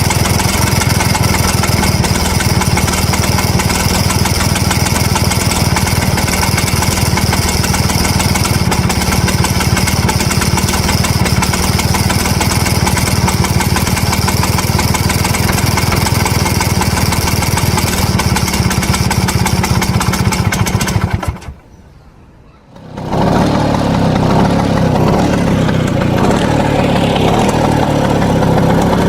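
1963 Vespa VBB scooter's single-cylinder two-stroke engine idling with a rattle. About two-thirds of the way through it cuts out for a couple of seconds, then runs again.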